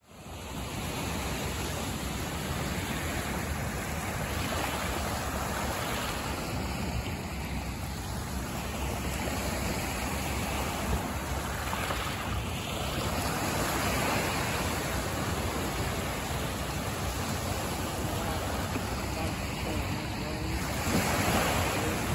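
Small waves washing up on a pebble shore, the rush swelling and falling back every few seconds, with wind on the microphone.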